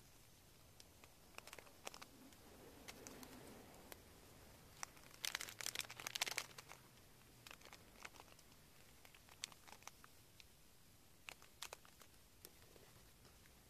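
Clear plastic sticker packaging crinkling as it is handled by hand, loudest in a short burst of crinkling a little before halfway through, with scattered light ticks and taps of paper and plastic on the page otherwise.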